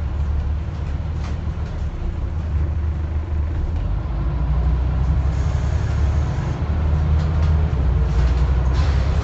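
Interior sound of a Scania N94UD double-decker bus on the move: its diesel engine drones low and steady and gets louder about halfway through as the bus pulls on, with a few short rattles from the body.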